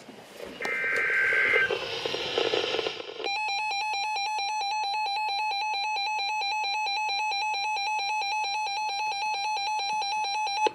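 NOAA weather radio picking up a short burst of coded alert data through static. About three seconds in, the receiver's built-in electronic alarm starts: a fast, steady, even warble, the sign that the set has been triggered by the alert code.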